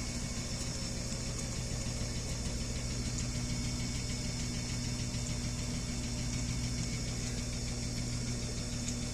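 Whirlpool Duet front-loading washing machine running, a steady low hum that does not change.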